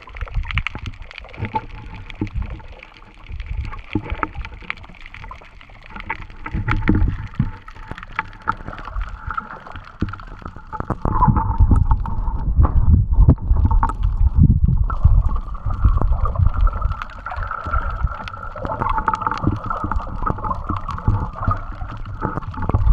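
Water sloshing, gurgling and knocking against a half-submerged action camera as it dips in and out of the sea, with muffled low rumbles. A steady higher hum joins about eleven seconds in and grows louder.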